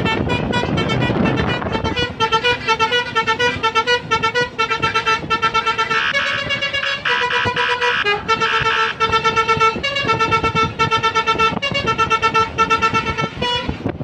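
A lorry's musical 'basuri' (telolet) air horn playing a quick tune of short, clipped notes at several pitches, starting about two seconds in and cutting off just before the end, over the running noise of the moving truck.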